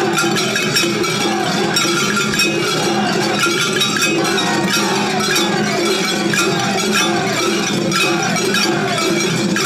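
Shagiri festival music played at full intensity: many hand-held surigane gongs clanging in fast, loud, overlapping strokes, with steady held tones and short swooping melodic figures running underneath.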